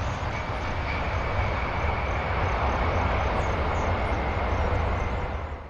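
Four-engined Boeing 747 jet engines and rumble as the airliner rolls out on the runway just after touchdown, with a faint steady high whine above the noise. The sound fades out quickly near the end.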